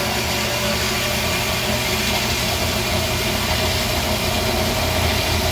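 Tormach AF50 automatic bandsaw running steadily, its blade cutting through aluminum bar stock.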